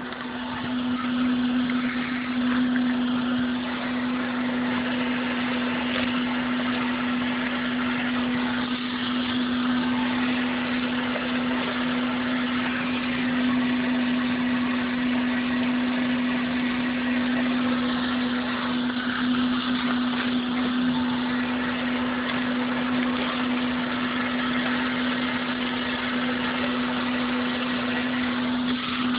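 Small electric gold-prospecting trommel running: a steady motor hum with water and gravel washing through the turning drum and pouring out into a bucket.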